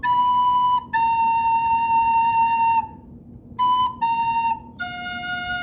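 A flute playing a slow phrase of five separate held notes, stepping between C and B-flat and then dropping to a long, lower F near the end.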